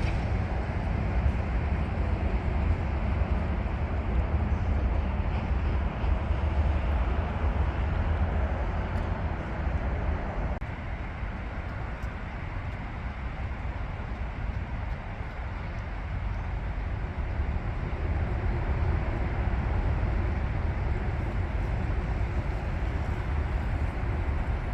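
Steady outdoor rumble and noise of a riverside park, heavy in the low end. It eases somewhat for several seconds in the middle, then rises again.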